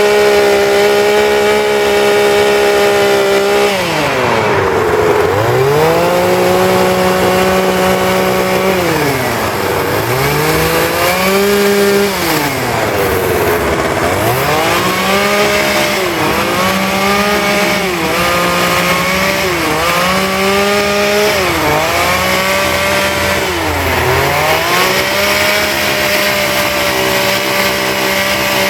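Two-stroke chainsaw carving wood, mostly held at high revs, with its pitch dropping and climbing back about ten times as the throttle is eased off and opened again.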